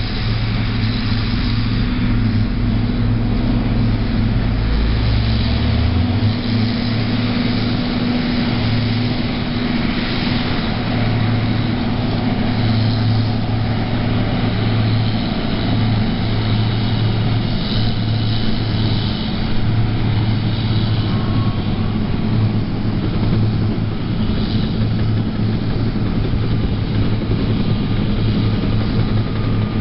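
Cat D6R XW bulldozer's diesel engine running steadily at a constant drone; its deepest rumble drops away about six seconds in.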